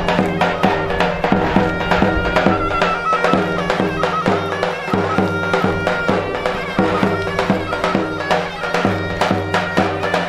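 Loud traditional Turkish folk music: a shrill reed wind instrument plays a melody over a steady drone, with a drum beating a fast, regular rhythm.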